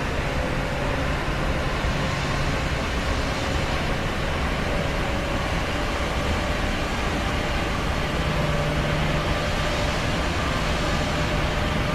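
Steady drone of an airplane in flight, heard from inside the cabin: rushing air noise with a low engine hum underneath, unchanging in level.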